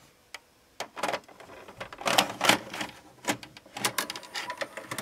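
A VHS cassette pushed into a JVC HR-A37U VCR, the front-loading mechanism drawing it in and seating it: a string of clicks and clunks, the loudest about two to three seconds in.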